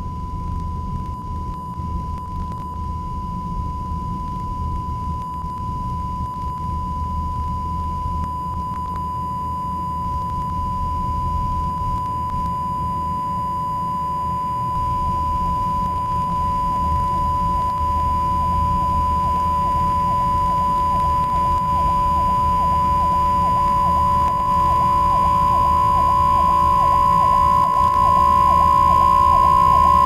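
A single steady high electronic tone held on one pitch over a low hum, growing gradually louder.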